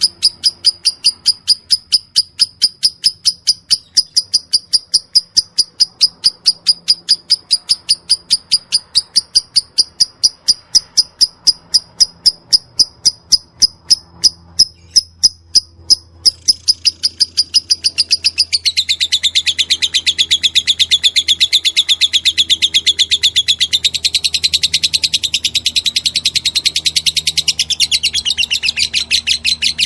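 Lovebird singing in the 'ngetik' (typing) style: a steady run of sharp, high ticking chirps, about four a second. About two-thirds of the way through it breaks into a denser, continuous chatter for roughly ten seconds, then goes back to ticking near the end.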